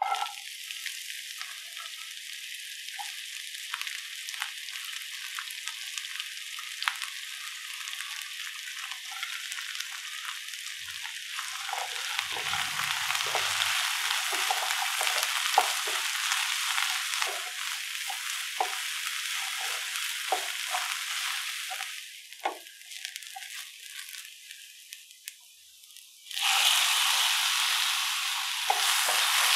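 Sliced onions sizzling in hot oil in a nonstick pan, starting abruptly as they are tipped in, with a spatula scraping and tapping as they are stirred. Near the end the sizzle jumps suddenly louder as chopped tomato goes into the pan.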